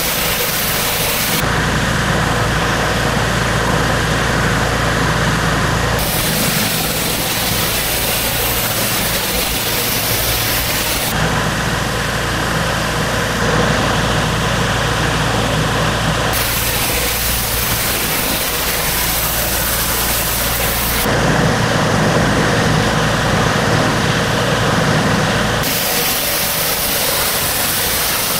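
Pressure washer running: a steady engine drone with the hiss of high-pressure water spray. The sound switches abruptly every four to five seconds between a deeper, engine-heavy roar and a brighter spray hiss.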